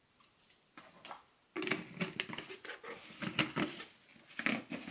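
Powdered peanut butter being shaken out of a plastic jar into a ceramic bowl: a dense, irregular run of light taps and rustles that starts about a second and a half in.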